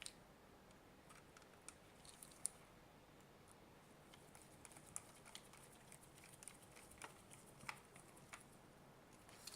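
Faint, scattered small clicks and light scrapes of screws being driven back into a plastic multimeter case with a small screwdriver.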